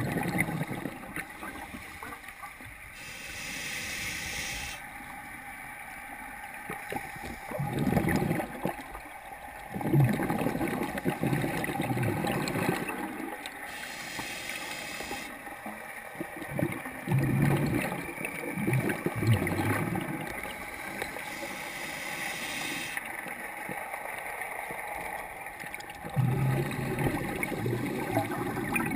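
Scuba diver breathing through a regulator underwater: three slow breaths, each a hiss on the inhale followed a few seconds later by a long gurgling rush of exhaled bubbles.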